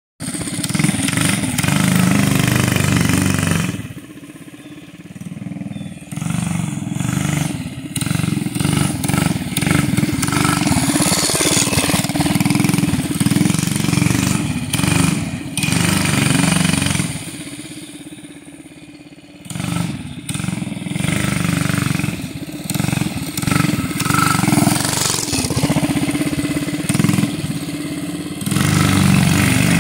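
Doodlebug mini bike's small single-cylinder engine running as the bike is ridden around, the engine note rising and falling with the throttle. It drops away twice, about four seconds in and again around seventeen seconds in, before picking back up.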